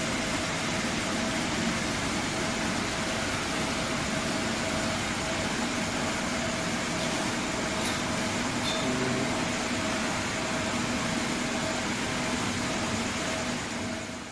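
Steady mechanical hum over an even hiss, unbroken, fading out at the very end.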